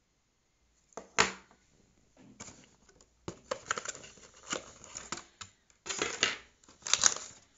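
Clear plastic packaging insert in a cardboard box being handled and crinkled: an uneven run of crackles and clicks that starts about a second in, loudest near the start and again near the end.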